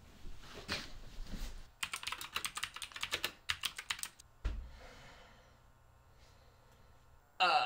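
Fast typing on a mechanical computer keyboard, a quick run of key clicks lasting about two seconds, followed by a single dull thump. A loud, short exclamation in a man's voice cuts in at the very end.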